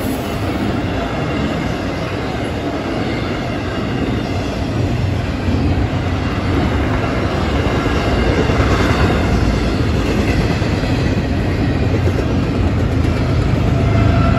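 Intermodal freight train rolling past fast, a steady rush and clatter of steel wheels on rail under the loaded well cars. The sound grows louder and deeper near the end as a diesel locomotive in the train draws near.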